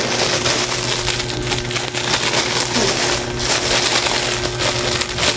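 Clear plastic packaging bag crinkling and rustling as it is handled and opened, over a steady low hum.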